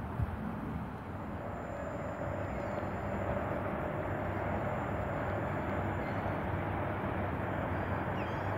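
Steady low rumble of distant motor noise, with a steady hum joining about a second in.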